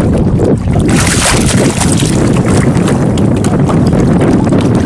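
Small boat's motor running steadily with wind buffeting the microphone, and water splashing about a second in as fish thrash in a landing net held at the waterline.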